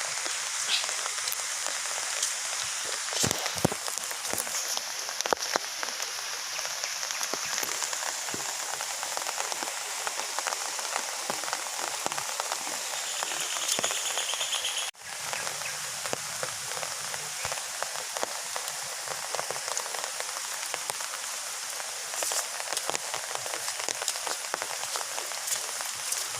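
Heavy rain falling steadily: a dense patter with many individual drops ticking through it, broken by a sudden momentary dip about halfway through.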